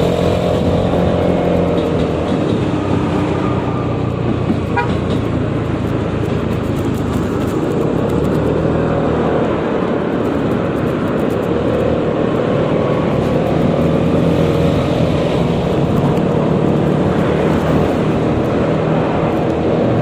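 Yamaha XMAX 300 scooter's single-cylinder engine on its stock exhaust, running steadily while riding, its pitch rising and falling gently with the throttle over wind and road noise, amid surrounding traffic.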